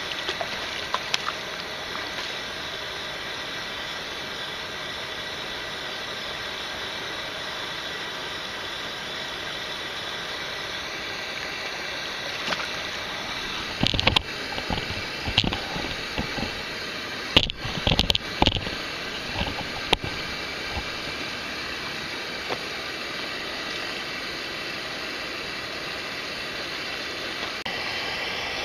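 Steady rushing of stream water. About halfway through comes a short cluster of sharp knocks and clicks.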